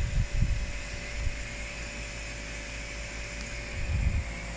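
Compressor nebulizer running with a steady motor hum, with a few low muffled bumps near the start and again about four seconds in.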